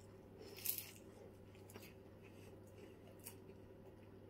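Table knife cutting through baked pastry and scraping on a ceramic plate: one short scrape about half a second in, then a few faint ticks, over a low steady hum.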